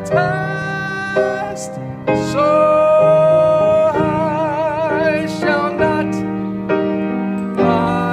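Grand piano playing gospel chords, struck about once a second, with a tenor voice holding one long sung note with vibrato from about two seconds in for about three seconds.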